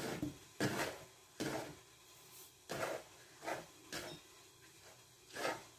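Hands rubbing and raking couscous grains in a wooden bowl: a series of soft, grainy swishes, roughly one a second. The grains are being worked apart so each falls separately before steaming.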